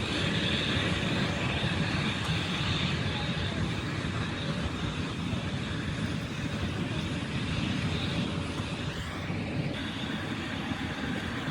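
Airliner's engines at take-off power, a steady rumble with a high whine above it.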